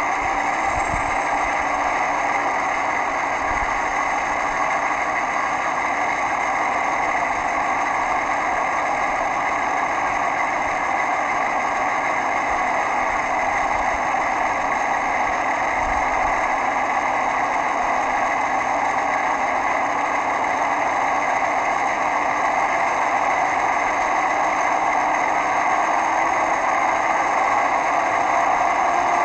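Sound-decoder playback of a China Railway DF4B diesel-electric locomotive's V16 diesel engine, running steadily at a constant pitch, with a high whine that climbs in the first few seconds.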